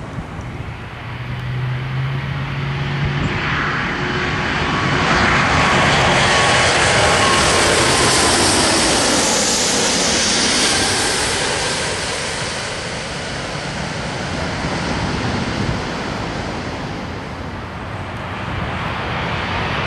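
Jet airliner engines at takeoff power on the runway: the jet noise builds over the first few seconds, peaks about halfway through, then eases off. Near the end the noise of a second airliner on low approach starts to grow.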